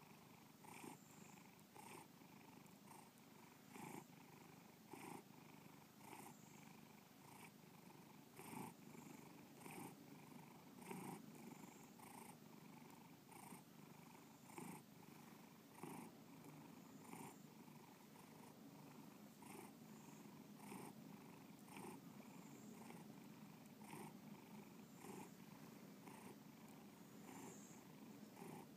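Domestic cat purring softly and steadily, the purr swelling in a regular pulse about once a second with each breath in and out.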